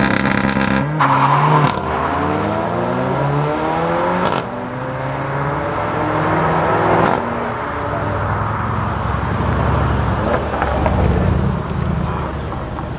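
Sports car accelerating hard away, its engine climbing in pitch, shifting up about four seconds in and climbing again before easing off about seven seconds in. A few sharp exhaust pops in the first two seconds.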